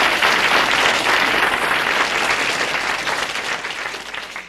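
Live audience applauding at the end of a comedy monologue, the clapping fading out over the last second or so.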